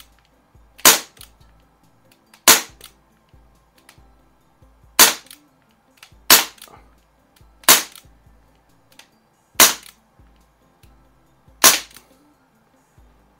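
Umarex Brodax .44 CO2 revolver fired double action with BBs: seven sharp pops spaced about one to two and a half seconds apart.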